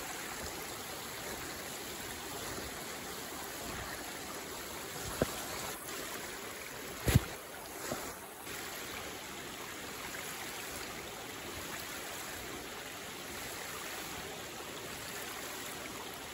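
Steady rush of flowing water, with two short sharp knocks, the louder one about seven seconds in.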